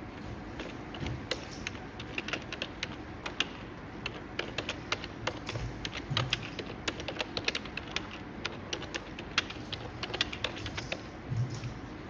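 Typing on a computer keyboard: irregular runs of quick key clicks over a steady background hiss.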